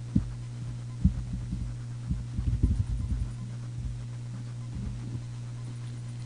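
Computer keyboard typing heard as dull, low thumps, mostly between about one and three seconds in, with a few more near five seconds, over a steady electrical hum.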